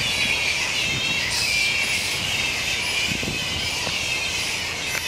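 A roosting colony of flying foxes (fruit bats) calling all at once: a dense, continuous, high-pitched racket of overlapping squeals and chatter.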